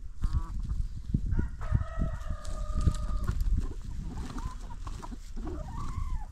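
Free-range chickens clucking, with a rooster crowing once, a held call of about two seconds in the first half. Steady low-pitched noise runs underneath.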